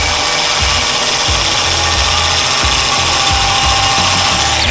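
Power drill spinning a hole-cutting bit pressed against a stainless steel pipe: a loud, steady, high-pitched grinding whine that cuts off suddenly at the end. The bit is not cutting, and the user doubts it is meant for metal.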